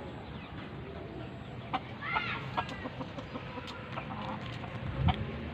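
A chicken clucking briefly about two seconds in, with a few sharp clicks and a low thump near the end.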